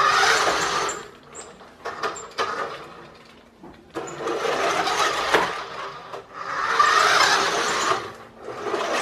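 Rastar 1:14 Range Rover Sport remote-control car's small electric drive motor and gears whirring in three spurts as it drives, with a few sharp clicks between them.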